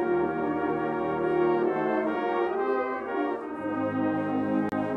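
Brass band of cornets, trombones, euphoniums and tubas playing a hymn in long, held chords. Lower bass notes come in about three and a half seconds in, and the sound cuts out for an instant near the end.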